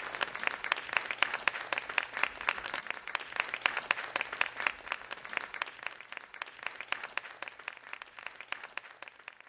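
Theatre audience applauding, a dense patter of many hands clapping that grows gradually quieter.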